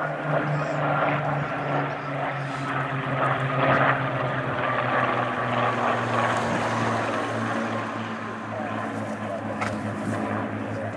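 Rolls-Royce Griffon and Merlin V12 piston engines of a Spitfire and a Hurricane flying past together in formation: a steady propeller-engine drone whose pitch slides down during the first half as the pair passes and draws away.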